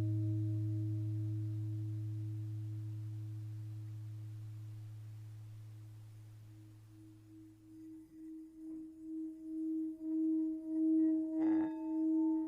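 A deep bell-like tone slowly dies away, then about eight seconds in a singing bowl starts ringing again, its tone swelling with a steady wobble about twice a second.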